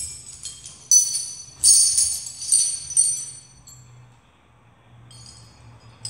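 Irregular bright metallic jingling and clinking, each clink ringing briefly and fading. The jingling is busy for about three seconds, goes quiet, and starts again near the end.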